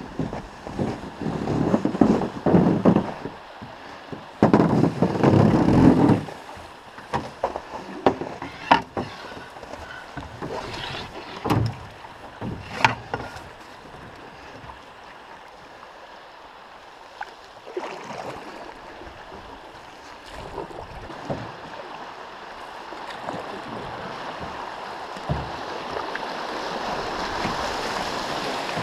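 A Clipper Prospector canoe and its paddle knocking and scraping in a cluster of loud bumps, then a few sharp knocks on the hull. Rushing water builds steadily toward the end as the canoe runs into a riffle.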